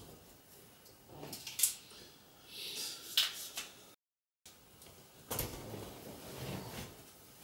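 Handling and movement sounds: a few sharp clicks and rustles, then shuffling as a person shifts and rises from a leather sofa. The sound cuts out completely for a moment about four seconds in.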